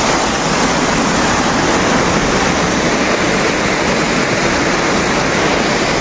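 A waterfall's white water rushing down over rocks close by: a loud, steady, unbroken noise.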